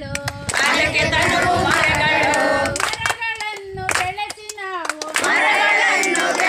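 A group singing a song in chorus with hand claps, a single voice carrying the line for a couple of seconds in the middle before the group comes back in.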